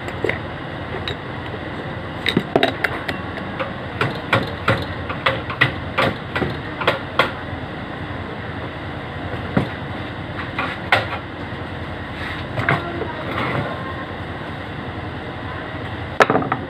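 A run of sharp knocks, about three a second for several seconds, with a few scattered ones later and a louder pair near the end, over a steady rumbling background noise.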